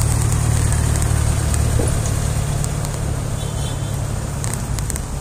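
Steady rumble of wind on the microphone and tyre noise from a bicycle riding on asphalt, with a few faint clicks near the end.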